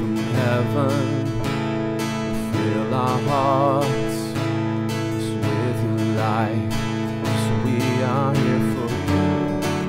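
Worship song played live: a man sings held notes with vibrato over a strummed acoustic guitar and sustained keyboard chords.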